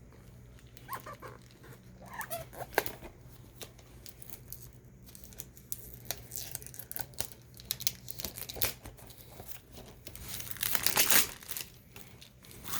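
Crinkling and light clicking of a DVD case and its plastic shrink wrap being handled, with a denser burst of crinkling about ten and a half seconds in.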